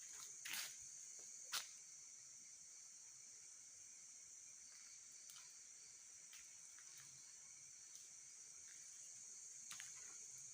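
Faint, steady high-pitched chorus of night insects, with two short scuffs, about half a second and a second and a half in.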